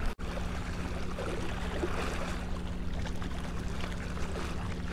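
Steady outdoor ambience at the water's edge at night: wind and water lapping, with a steady low hum underneath. A brief dropout just after the start, where the footage is cut.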